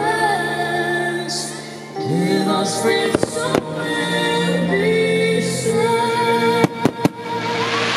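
Music with a woman singing over a fireworks display, with fireworks going off in a few sharp bangs about three seconds in and a quick cluster of bangs near the end.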